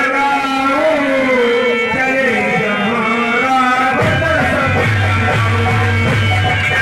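A man singing a melodic line through an amplified microphone and loudspeakers, his voice gliding and holding long notes. About four seconds in, a deep, steady low accompaniment comes in under the voice.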